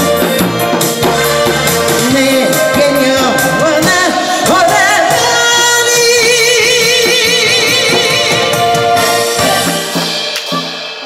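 A woman singing a Korean trot song into a microphone over an amplified backing track, holding one long note with wide vibrato in the middle.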